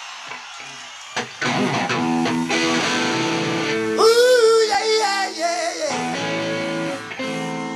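Live rock band at a concert: electric guitar chords struck and left ringing, with a high, wavering wailing vocal from about four to six seconds in.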